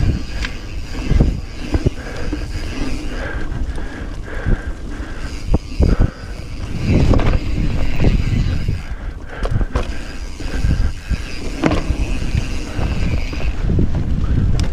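Mountain bike riding fast down dirt singletrack, heard from a camera mounted on the bike: wind rushing over the microphone, with repeated knocks and rattles as the bike hits bumps in the trail. The knocks grow louder and busier a little past halfway.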